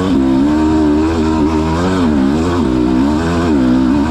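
Dirt bike engine running hard, its pitch rising and falling again and again as the throttle is worked through a trail section.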